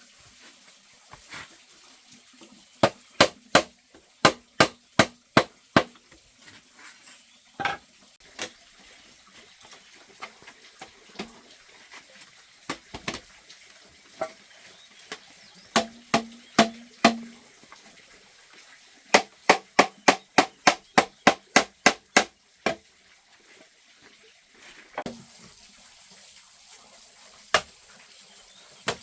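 Repeated hard tool blows on bamboo: runs of sharp knocks about three a second, broken by pauses, with a few single strikes between.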